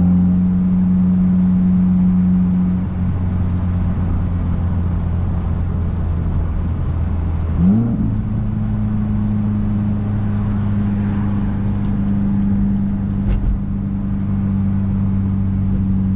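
Subaru WRX's turbocharged flat-four with an open J-pipe, heard from inside the cabin while driving, running at a steady pitch. About eight seconds in the engine note rises quickly in pitch, then holds a slightly higher steady tone.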